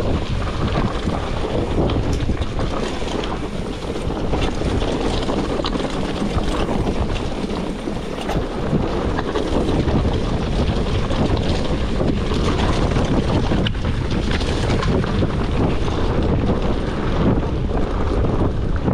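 Wind rushing over the camera microphone while a mountain bike rolls down a dry dirt and gravel trail, with a steady low tyre rumble and scattered clicks and rattles from the bike jolting over stones.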